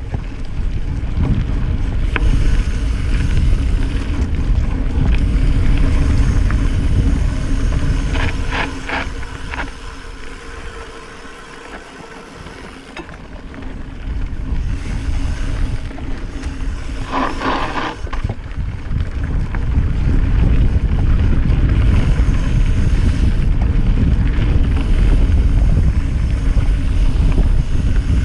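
Wind buffeting a GoPro Session's microphone during a mountain-bike descent on a dirt singletrack, mixed with the rumble of the tyres and the bike rattling over the trail. The noise eases off briefly about midway, then builds again, with two short higher-pitched bursts about 8 s and 17 s in.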